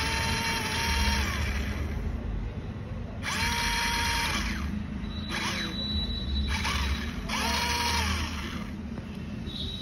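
Small electric motor in a model tractor, run in four short bursts of about a second each. Each burst has a whine that rises as the motor spins up and drops as it stops.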